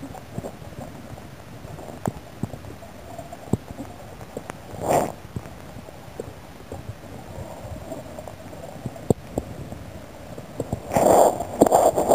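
Muffled underwater sound picked up by a camera in a waterproof housing: scattered clicks and knocks over a dull low rumble, with a short rushing burst about five seconds in and longer rushing near the end.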